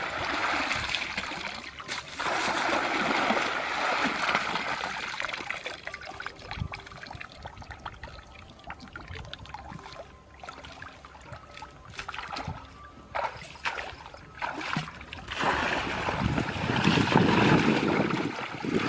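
Shallow muddy water splashing and sloshing as someone wades and scoops through it with a woven bamboo basket trap. The splashing is louder for the first few seconds and again near the end, quieter in between with a few small knocks.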